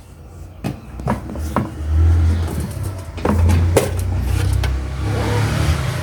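Sharp knocks and clatter of hard parts being handled, over a steady low rumble, with a rushing hiss for about the last second.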